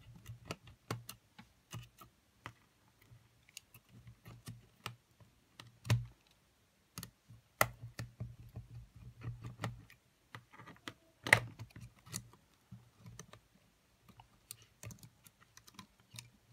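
Irregular small clicks and taps of fingers prying up and handling the circuit board and metal chassis of a cassette Walkman, with one louder click about eleven seconds in.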